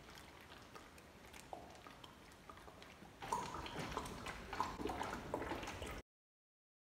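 Water being chugged from an upended plastic bottle: faint gulping at first, then louder gulps with wet crackling and clicking from about three seconds in. The sound cuts off abruptly to silence about six seconds in.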